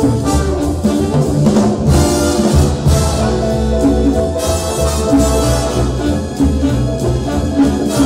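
Jazz orchestra playing an instrumental break with no vocal: brass section over a drum kit.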